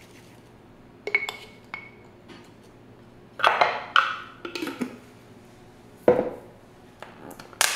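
Kitchenware being handled: a series of separate clinks and knocks of dishes and cutlery, the loudest around three and a half and six seconds in.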